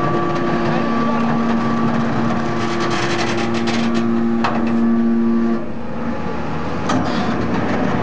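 Hydraulic power unit of a Y81-3150 scrap-metal baler running with a steady whine, while the press works. A quick run of sharp clicks and cracks comes in the middle and single clanks follow; about two-thirds of the way through the whine drops away, then returns near the end.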